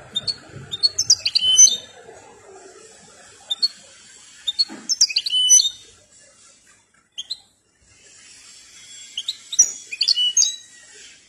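Song-trained European goldfinch singing: rapid high twittering notes and trills in three bursts of about two seconds each, with a couple of short notes between.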